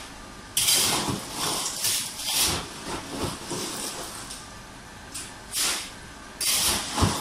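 Ice cubes being scooped from an ice machine bin into a plastic bag: a string of short, irregular crunching, rattling bursts, with a dull thump near the end.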